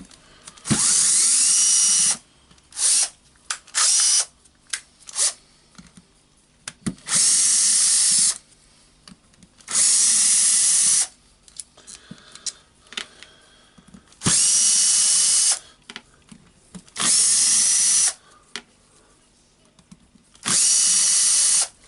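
Power drill-driver run in repeated bursts of about a second and a half, six long runs with a few short blips early on, each starting with a quick rising whine; it is unscrewing the screws that hold the top housing of a rotary hammer.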